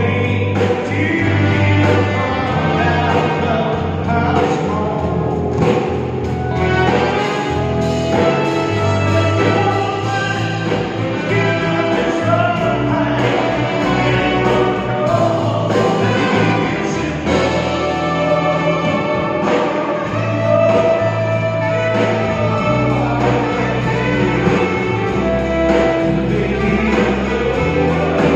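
Live swing big band with a male singer: piano, guitar, bass, drums and a horn section of trumpet, trombone and alto and tenor saxophones accompanying the vocal.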